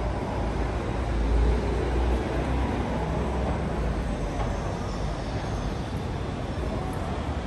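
A passing road or rail vehicle rumbling low amid street noise, heaviest in the first couple of seconds and then easing off.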